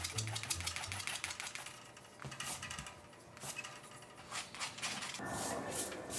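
Charcoal scratching on paper in rapid hatching strokes, thinning to a few separate strokes. About five seconds in, a wide paintbrush starts sweeping over the paper with a denser brushing rasp.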